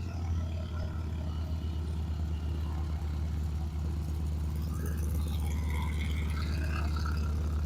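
Piston aircraft engine running steadily at low power, a continuous low drone.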